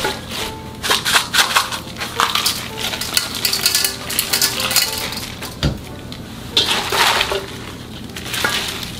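Young radish greens rustling and crackling as they are lifted and layered in a stainless steel bowl, with a single knock against the bowl a little past halfway. Soft background music plays underneath.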